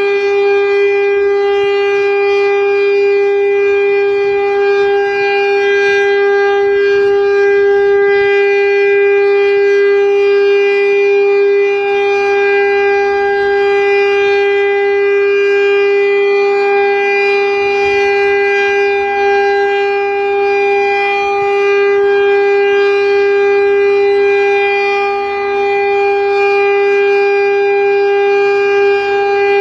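Federal Signal STL-10 outdoor warning siren sounding the full alert signal: one loud, steady tone held at a constant pitch throughout.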